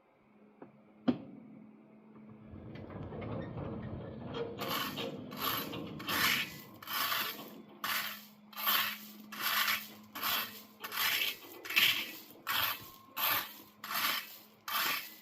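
Rake scraping through gravel ballast in steady, even strokes, about one and a half a second, after a single sharp click about a second in. A faint low steady hum runs underneath.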